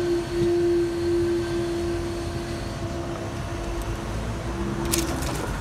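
Level crossing barrier booms being raised: the barrier mechanism's motor runs with a steady hum, which stops about five seconds in, followed by a few sharp clicks.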